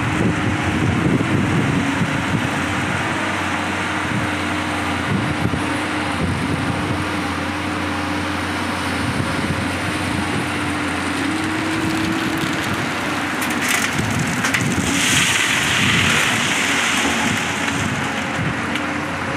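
JCB tracked excavator's diesel engine running steadily under hydraulic load. About fifteen seconds in, a loud rush and rattle of crushed stone pouring from the bucket into the truck's steel bed lasts a couple of seconds.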